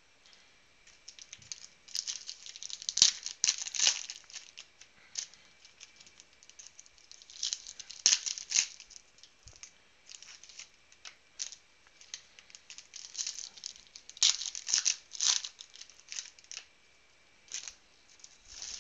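Foil wrappers of 2010 Donruss Elite football card packs crinkling and tearing as the packs are handled and ripped open, in several bursts of crackling with shorter crinkles in between.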